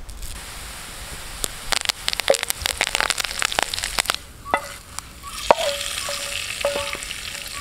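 Curry leaves hitting hot oil with mustard seeds and fried shallots in an iron pan, sizzling with sharp crackling pops as the tempering is fried. In the second half a wooden spatula stirs and there are short ringing metallic clinks, then a fresh hiss as the hot tempering is poured onto the curry.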